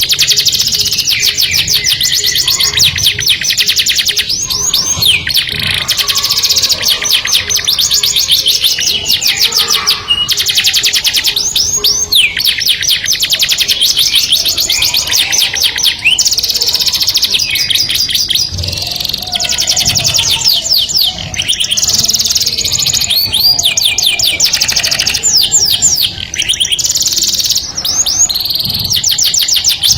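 Canary singing a long, continuous song of rapid trills, one fast-repeated note after another, switching between phrases with a few brief pauses.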